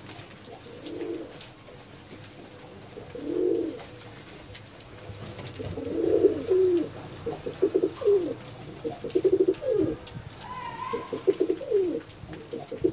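Domestic pigeons cooing. A few separate coos at first, then more frequent, rapidly pulsing coos from about halfway in.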